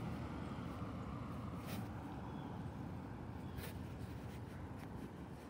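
Low rumble of a road vehicle slowly fading away, with a few faint clicks.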